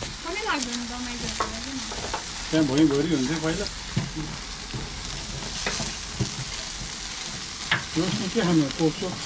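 Chicken wings and burgers sizzling over charcoal on a grill, a steady spitting hiss. Metal tongs click now and then against the grill grate as the wings are turned.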